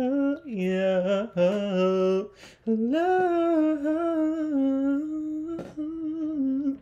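A man humming a wordless tune in long held notes, in four phrases with short breaks between them, the longest phrase starting about a third of the way in.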